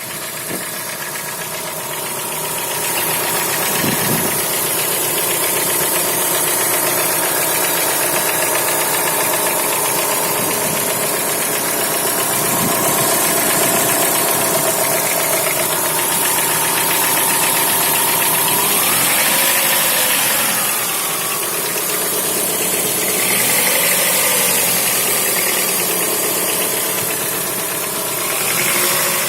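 Chrysler Voyager's 2.4-litre four-cylinder engine running with a fast, steady knock from inside the engine. Its pitch rises and falls a few times in the second half.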